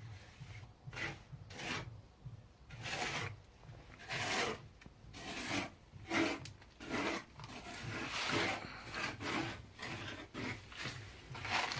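Cement mortar being worked by hand in a series of scraping strokes, about one a second, typical of a trowel spreading and smoothing plaster.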